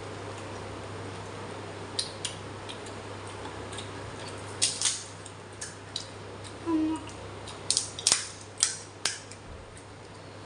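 Crisp cracks and crunches of fried fuchka (pani puri) shells being broken open with the fingers and bitten, about a dozen short sharp snaps starting about two seconds in, over a steady low hum.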